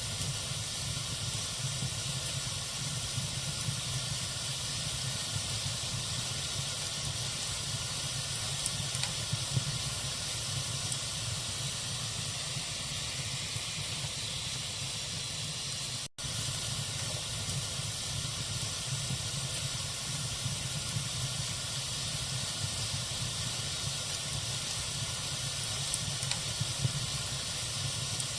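Log fire in a fireplace burning with a steady hiss and occasional small crackles. The sound cuts out for an instant about sixteen seconds in.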